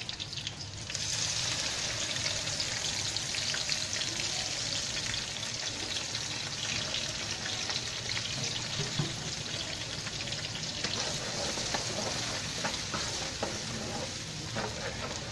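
Blended spice paste poured into hot oil in a non-stick wok, sizzling up sharply about a second in and then frying with a steady hiss. Near the end a spatula stirs through it with a few light scrapes.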